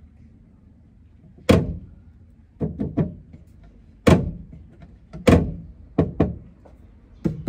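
Plywood cabinet door being shut and worked at its catch, giving a series of about nine sharp wooden knocks and thunks, some in quick pairs and threes.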